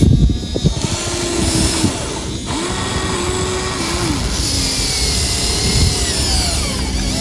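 Electric motors of a Huina 1593 RC excavator whining as its arm and tracks move, the pitch stepping up and down as each motor starts and stops, over steady mechanical clatter. There are a few knocks near the start.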